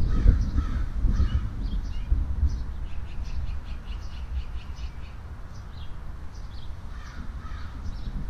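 Birds calling: lower calls in the first second or so and again about seven seconds in, with many short high chirps throughout. A low, uneven rumble runs underneath.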